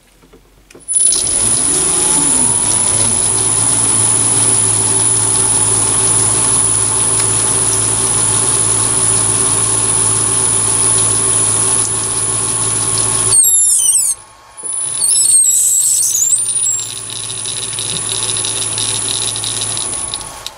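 Chinese mini lathe starting up about a second in and running at about 300 rpm with a steady high motor whine, while a 4 mm combination drill-tap in the tailstock drills and threads a Delrin disc. About 13 s in it stops briefly with squealing, then runs again in reverse to back the tap out of the thread, squealing more.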